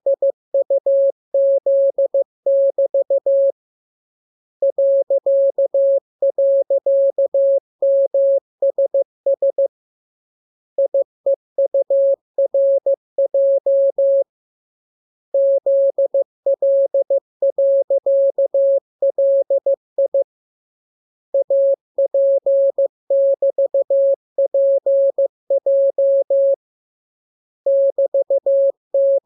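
Morse code practice signal: a single steady mid-pitched beep keyed on and off in short dots and longer dashes, sent as runs of characters of about four to six seconds with short pauses between them.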